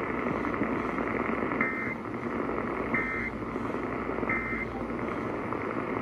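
Emergency Alert System end-of-message data tones played through a portable radio's speaker: three short, identical bursts of two-tone digital screech about 1.3 seconds apart, starting about a second and a half in, over steady radio hiss. They mark the end of the severe thunderstorm warning broadcast.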